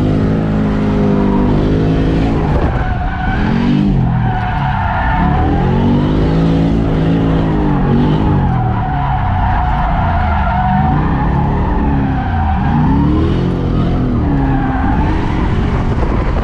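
LS3 6.2-litre V8 in a Nissan 240SX revving up and down repeatedly as the car drifts, with tyres squealing and skidding under it.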